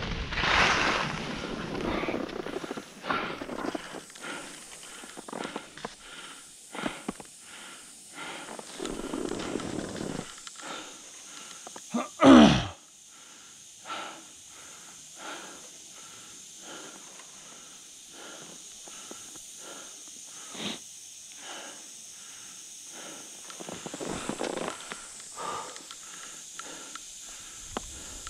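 Skis sliding and scraping over groomed, packed snow: a steady hiss broken by many short edge scrapes, with some wind on the microphone. About 12 seconds in comes the loudest sound, a brief one that drops quickly in pitch.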